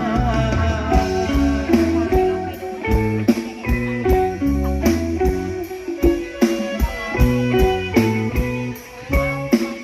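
Live band playing an instrumental passage: electric guitar leading over bass and a steady drum beat.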